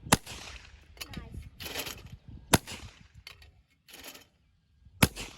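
Shotgun fired three times at clay targets, the shots about two and a half seconds apart, with shorter hiss-like noises between them.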